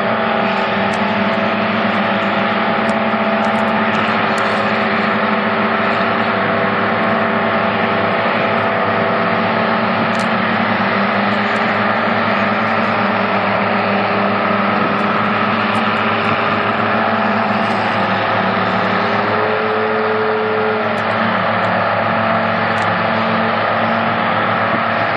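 Steady, loud drone of running engines with several held tones, one of which rises a little for a couple of seconds about three quarters of the way through.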